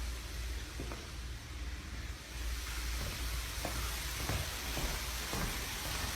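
Faint footsteps and a few light knocks from someone walking through an empty house with a handheld camera, over a steady hiss and low hum.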